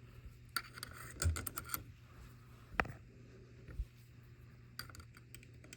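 Fire alarm pull station being handled to reset it, its glass reset rod and cover parts fiddled into place: scattered light clicks and taps, with a sharper click about three seconds in.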